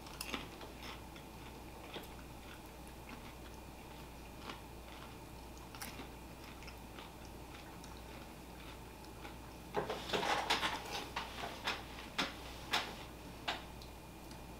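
Crunchy drizzled kettle corn popcorn being chewed: faint scattered crunches, with a louder, denser spell of crunching about ten seconds in.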